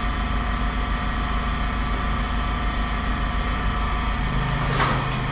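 An engine idling steadily with a low rumble, a deeper steady tone joining about four seconds in, and a short clatter near the end.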